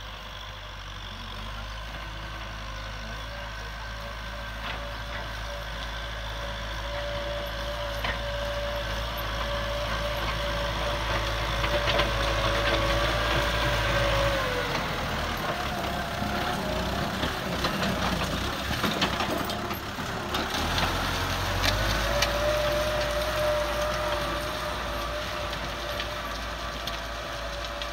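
Kubota M6040 tractor's four-cylinder diesel engine running steadily under load while pulling a disc plough through the soil, getting louder as it comes near. About halfway, as it passes close, the engine note dips and there are clanks and knocks from the tractor and plough for several seconds, then it settles back to a steady note.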